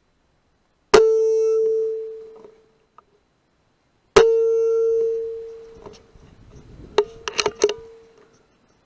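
Two air rifle shots about three seconds apart, each a sharp crack followed by a metallic ring that dies away over a second or so. Near the end comes a quick run of sharp metallic clicks that also ring.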